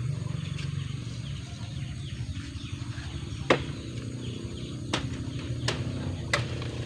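Four sharp knocks in the second half, spaced about a second apart, over a steady low hum.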